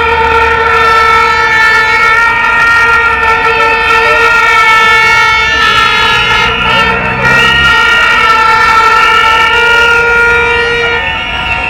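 Several horns held at once in a loud, continuous drone of overlapping steady tones, the mix of pitches shifting about halfway through.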